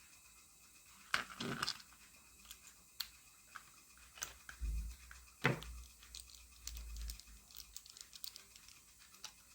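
Clicks and light knocks of hands working a plastic toy sonic screwdriver as its batteries are poked out from behind. There are louder knocks about a second in, at three seconds and about five and a half seconds in, between scattered small ticks.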